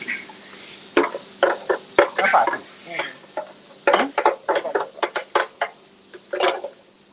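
Metal ladle scraping and knocking against a steel wok while stirring sambal paste as it fries, with a low sizzle. The strokes are quick and irregular, bunched in runs, over a steady low hum from the kitchen range.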